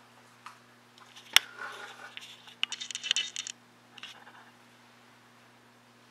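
Small plastic tubs and a utensil handled on a table: a sharp click about a second and a half in, then about two seconds of light clattering and scraping, and a softer knock near four seconds.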